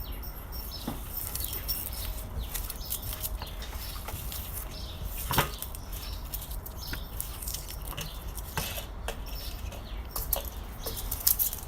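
Hands crumbling and breaking up crunchy add-in material into chunks for slime: a scattered crinkling, crackling rustle of small clicks, with one sharper crack about five seconds in, over a steady low hum.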